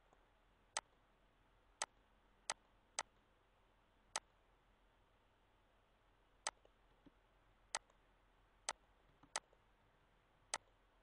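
Computer mouse clicking: around ten sharp single clicks at irregular intervals over near-silent room tone.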